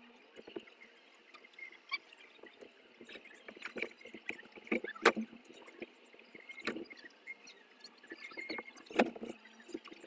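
Scattered clicks, taps and knocks of hands working a table fan's motor wiring and handling the fan and a pair of pliers, with a sharper knock about halfway through and another near the end.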